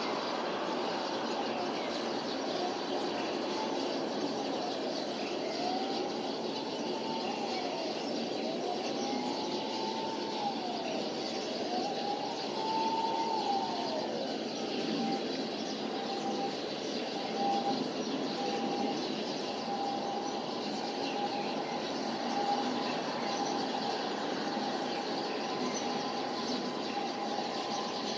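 A siren wailing, its pitch sweeping up and down in long arcs about every two seconds, then holding one steady note for the second half, over a steady background of city noise.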